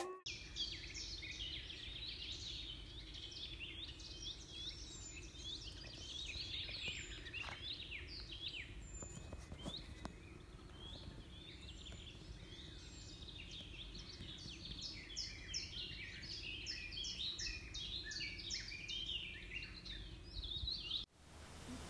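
Birdsong: many birds singing at once, a dense chorus of short chirps and trills, over a faint steady low hum. It stops suddenly near the end.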